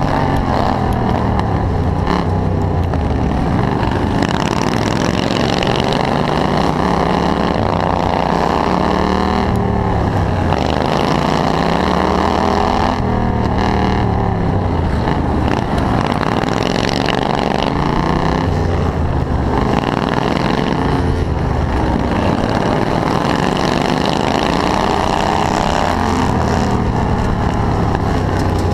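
Racing ride-on lawn mower engine heard from on board at race pace, its pitch rising and falling every few seconds as it accelerates out of the corners and eases off into them.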